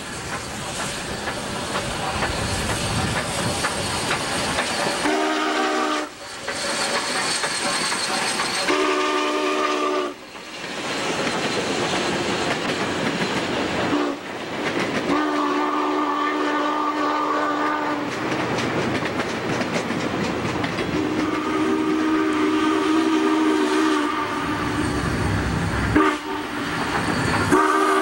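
Union Pacific 3985, a 4-6-6-4 Challenger steam locomotive, passing with the rumble and clatter of its train, and blowing its steam whistle in several blasts: two short ones in the first ten seconds and longer ones after that.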